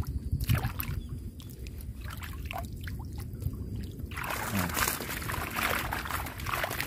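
Water splashing and sloshing, then, from about four seconds in, a steady pouring rush as a mesh fish keepnet is lifted out of the water and the water drains through the netting.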